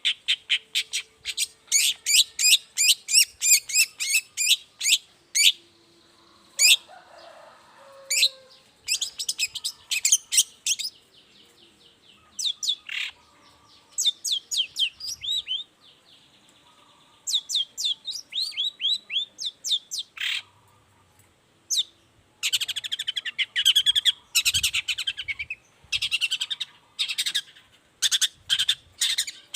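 Long-tailed shrike (cendet) singing in full song: rapid runs of sharp, high, downward-sweeping notes, several a second, in bursts broken by short pauses, with a denser, louder stretch about three quarters of the way through.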